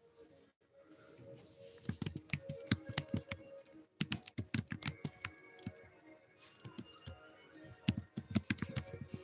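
Quick runs of typing taps in irregular clusters, pausing briefly about four seconds in, over faint background music.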